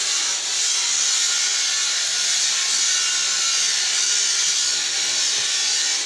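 A steady, loud hiss that does not change.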